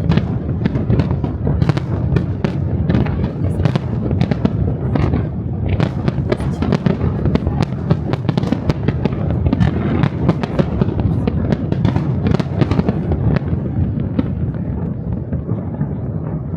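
Aerial fireworks exploding in a rapid, dense barrage: many sharp bangs and crackles over a continuous low rumble, growing a little sparser near the end.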